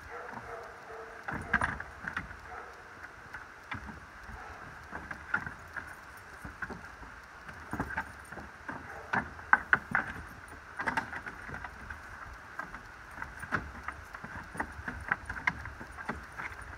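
Great Pyrenees dogs scrambling and wrestling on the plank floor of a wooden shelter: irregular knocks, thumps and claw scrapes on the boards.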